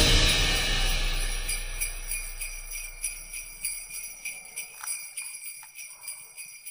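Sleigh bells jingling in an even rhythm in background Christmas music, fading out steadily.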